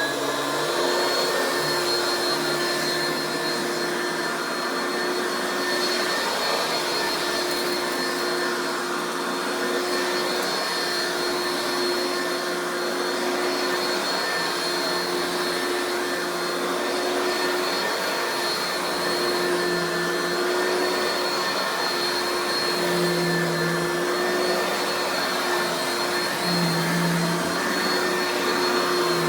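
Oreck XL2 Ultra lightweight upright vacuum's two-speed motor running on high speed, a pretty loud, steady whine. Its pitch climbs as it comes up to full speed right at the start, then holds level.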